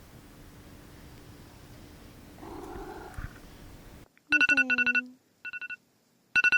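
Quiet room tone with a brief soft sound about two and a half seconds in, then from about four seconds in a loud electronic ringtone-like chime: quick repeated beeps in short groups, typical of a phone alarm.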